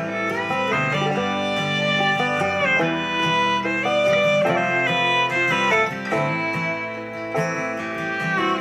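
Instrumental country/bluegrass-style music with fiddle and guitar, played through the Muzen Wild Go, a small portable Bluetooth speaker with a single 36 mm, 5 W driver, at 75% volume. Little deep bass comes through.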